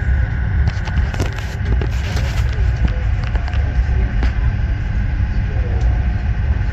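Alaska Railroad Denali Star passenger train running, heard from inside a passenger car: a steady low rumble of wheels on the track with a thin, steady high whine over it. Sharp clicks and knocks come about one to two and a half seconds in and again near four seconds.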